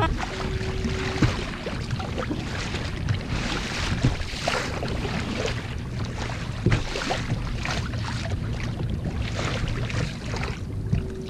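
Double-bladed kayak paddle dipping and splashing into choppy sea water with each stroke, over a steady rush of water and wind.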